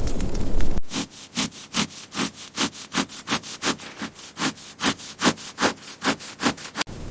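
Wood being worked by hand: rhythmic rasping strokes, about two and a half a second, that start abruptly about a second in and stop near the end. Before them comes a brief loud, low rushing noise.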